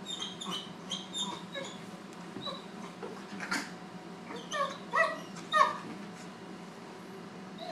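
Puppies at play: a quick string of short, high-pitched yips and whimpers, growing louder about four and a half to six seconds in.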